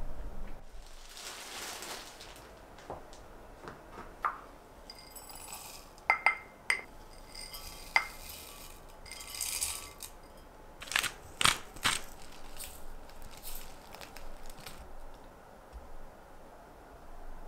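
Brown sugar and seeds poured into a glass mug, with a short granular rustle several times and sharp clinks of a spoon against the glass, loudest around the middle of the stretch.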